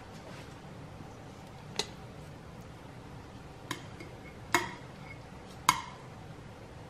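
Metal tongs clinking against the stainless steel inner pot and wire trivet of an Instant Pot as chicken thighs are set in: four sharp clinks, each with a short metallic ring.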